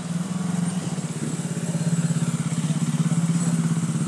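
A vehicle engine running steadily with a fast, even pulsing, growing louder over the first couple of seconds.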